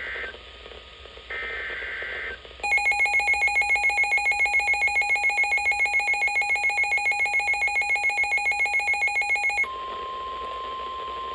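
Weather radio alert sequence: two short bursts of warbling SAME data tones, then a rapidly pulsing electronic alert beep, about six a second, for about seven seconds, then the steady 1050 Hz NOAA Weather Radio warning alarm tone starting near the end, signalling a new warning.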